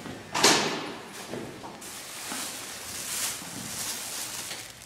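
Handling noise as a phone's microphone is jostled and rubbed against clothing and wig hair: a sharp rustle about half a second in, then softer shifting and scraping.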